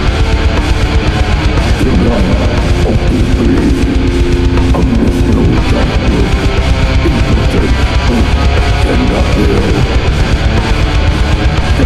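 Death-doom metal: heavily distorted electric guitars playing over drums, loud and continuous.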